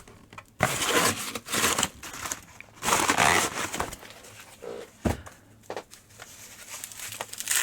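Crinkling wrapping or packaging being handled in several rustling bursts, followed by a few sharp knocks later on.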